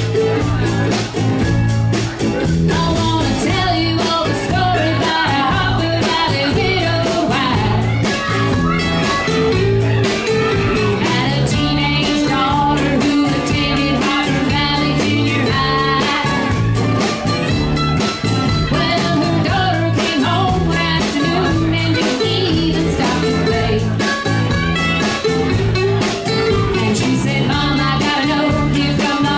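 Live acoustic band playing a country song: strummed acoustic guitars and mandolin over a steady beat, with a woman singing the lead.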